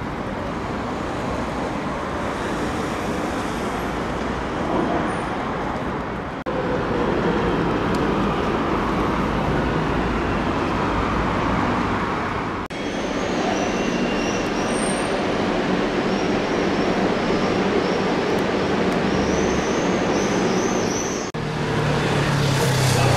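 City street traffic noise: a steady hum of passing cars and buses. It changes abruptly three times, and in the middle stretch a run of high, repeated chirps sits above it.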